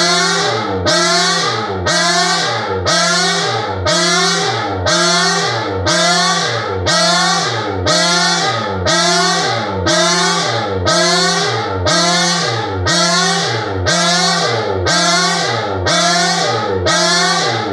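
Electronic siren sound effect: a whooping tone that sweeps up in pitch and repeats about once a second, each cycle opening with a burst of hiss over a low falling tone.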